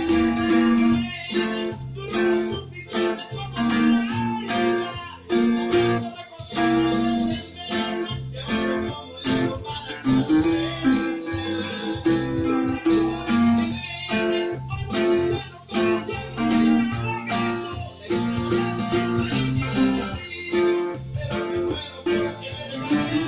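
Bajo quinto, the Mexican ten-string instrument in five doubled courses, played solo with a pick: a steady stream of quickly picked notes and chords, with the tune's ornaments.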